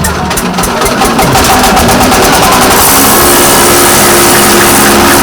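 Grain milling machine running loudly with its engine, a steady dense mechanical noise that overloads the recording, with a steady hum joining about halfway through.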